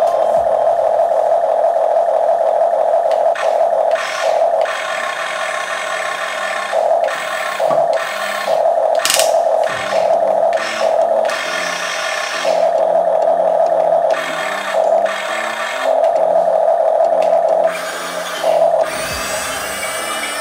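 Electric gear motors of a Huina 15-channel RC excavator whirring in a series of short runs, each a fraction of a second to about two seconds long, as the boom and bucket are driven by remote. Background music plays throughout.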